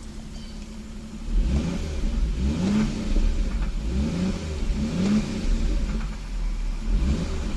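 Toyota 7M-GTE turbocharged straight-six engine idling, then blipped with the throttle about five times in quick succession, starting about a second and a half in. The owner suspects the knock in the engine is rod knock.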